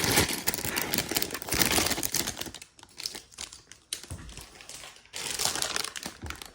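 Plastic parts bag crinkling and small plastic building pieces clicking and rattling as they are handled, with a quieter stretch in the middle.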